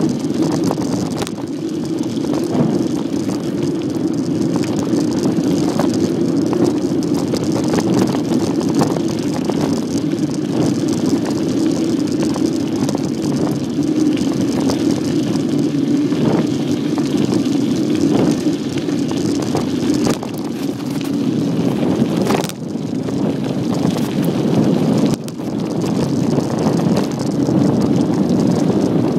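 Bicycle riding along a dirt track: steady rolling noise of the tyres on the ground, with frequent small rattles and knocks from the bike over the rough surface, dipping briefly twice near the end.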